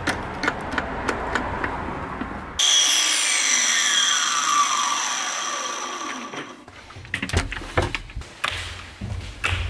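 Power saw cutting painted wooden trim strips to length: clicking and rasping at first, then a sudden loud high whine about two and a half seconds in that slowly falls in pitch over some four seconds as the motor runs down, followed by lower rumbling with clicks.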